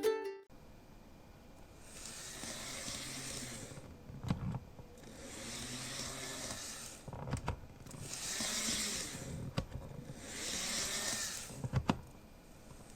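Handling noise: four rustling swells, each about two seconds long, with a few sharp clicks between them.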